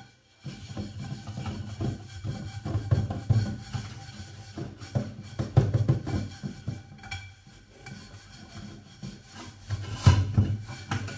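A scourer scrubbing burnt residue off the metal base of an upturned pot in a steel sink, in quick, uneven rubbing strokes.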